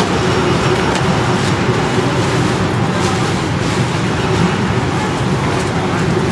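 Steady city street traffic noise, a continuous rumble of passing vehicles.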